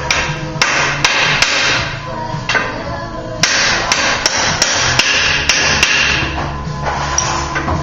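Hammer tapping a seal driver to seat the case seal in a 4L80E automatic transmission case: a series of sharp metal taps, several in quick runs, over background music.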